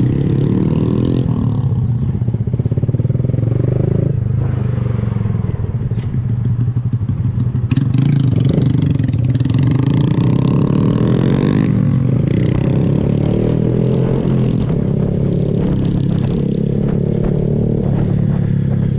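Motorcycle engine running, its revs rising and falling several times.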